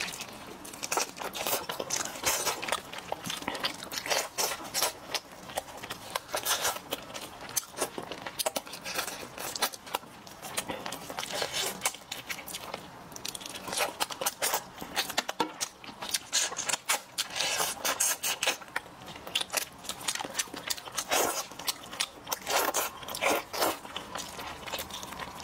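Close-up eating sounds: a man chewing and biting steamed chicken in chili sauce, wet mouth and lip smacks mixed with irregular crackly clicks as the meat is pulled apart by gloved hands over crinkling aluminium foil.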